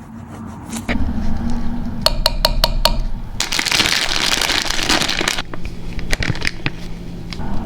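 Baking sounds in a kitchen: a utensil taps quickly against a glass bowl about eight times, then there are about two seconds of rushing hiss and a few scattered clinks, all over a low steady hum.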